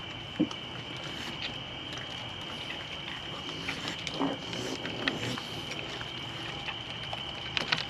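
Wild raccoons foraging at close range: scattered small clicks and knocks, with a short low grunt about four seconds in, over a steady high-pitched drone.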